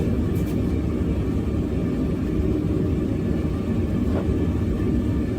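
Forge running with a steady low rumble, with one faint click about four seconds in.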